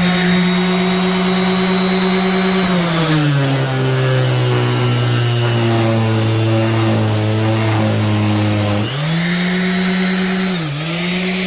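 Electric sander with a flexible sanding pad running hard against cable insulation. Its motor note sags about three seconds in as it is pressed down under heavy load, stays low, climbs back near the end, and dips once more briefly.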